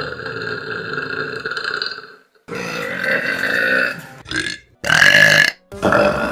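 A run of loud human burps one after another with short gaps: a long drawn-out burp, a second long one, two short ones, then another long one starting near the end.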